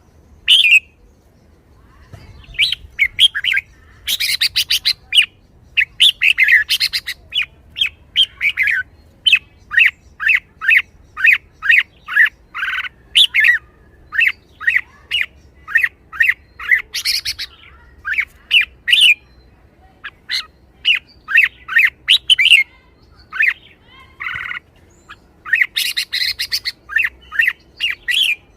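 Red-whiskered bulbul singing without pause: a quick run of short, bright whistled notes about two a second, broken every so often by harsher chattering bursts.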